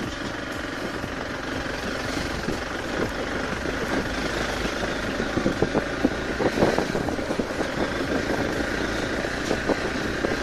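Hero Xpulse 200 4V's single-cylinder engine running steadily as the bike rides slowly over a rocky, muddy dirt track, with a run of clattering knocks from stones and the bike's chassis about halfway through.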